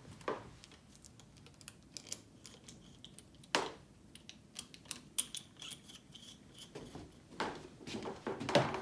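Scattered light clicks and small metallic taps of a bicycle's front brake cable and lever being handled and refitted, with one sharper knock about three and a half seconds in.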